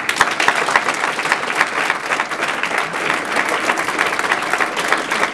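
Audience applause: many people clapping hands in a dense, steady patter that holds at the same strength throughout.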